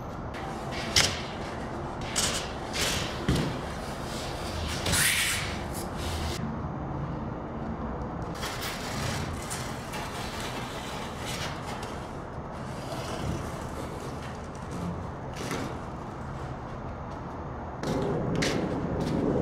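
Extruded polystyrene foam pieces of a car-body plug being handled and fitted together: scattered light knocks and clicks, a longer scratchy rasp about five seconds in, over steady background hiss.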